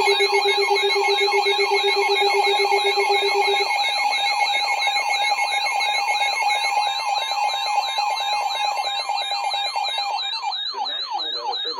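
Several electronic weather alert radio alarms sounding at once: a sweeping tone repeating about three times a second over a high warble, with a steady pulsing low beep that stops about four seconds in.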